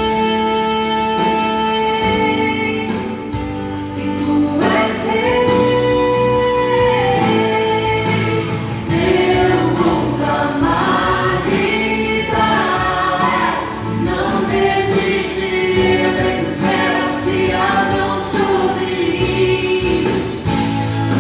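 Portuguese-language gospel worship song: voices singing together over instrumental backing, with held chords at first and sung phrases starting about four seconds in.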